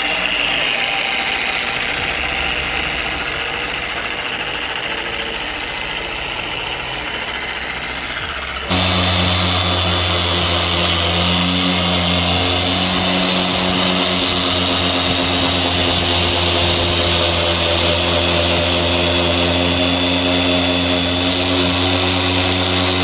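Harbor Freight 6-inch dual-action variable-speed polisher running steadily, its foam pad working finishing polish over car paint. About nine seconds in, the sound abruptly steps up louder, with a strong low hum that holds steady after that.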